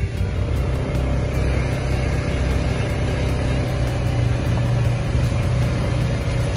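Can-Am Commander XT side-by-side's engine running steadily as it drives, a low, even hum.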